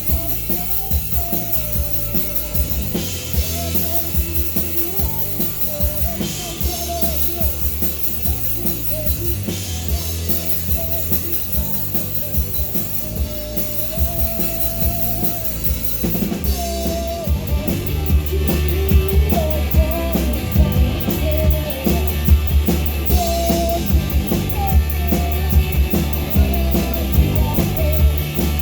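Live rock band playing: drum kit keeping a steady beat with bass and guitar, getting fuller and louder about halfway through.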